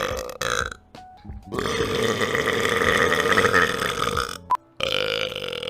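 Long, drawn-out human burps: a short one ending just under a second in, then one held for about three seconds, and another beginning near the end, with abrupt cuts between them.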